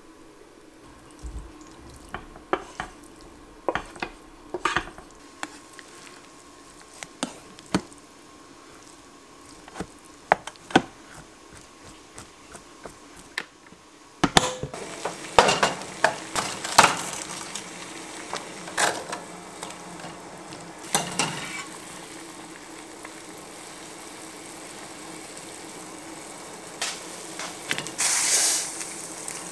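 A utensil stirring rice in a rice cooker's inner pot, with scattered scrapes and taps, then the cooker lid shut with a clack about halfway through. After that a steady hiss of water boiling in a saucepan, with more clatter and a short rush of noise near the end.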